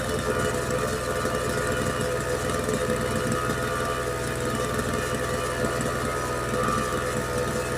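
An engine or motor running steadily: a constant hum with several held tones and no change in speed.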